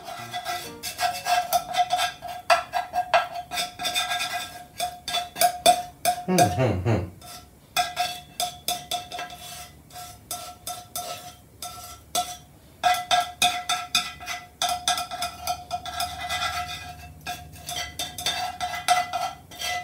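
Chopsticks scraping and tapping against a frying pan in quick, uneven strokes, working leftover egg out of it, with the pan ringing briefly at a steady pitch as it is scraped. A falling pitched sweep sounds once, about six seconds in.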